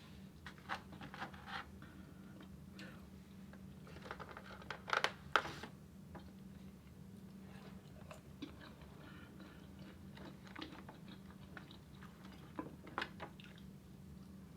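A person chewing and biting food close to the microphone, with scattered soft crunches, the loudest a pair about five seconds in. A faint steady low hum runs underneath.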